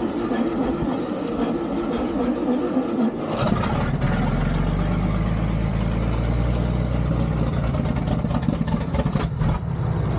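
1926 Ahrens-Fox fire truck's engine running as the truck rolls up with a wavering note, then settling into a steady low idle once it stops, a little over three seconds in. The old engine runs, though not well enough to drive the truck up onto a trailer.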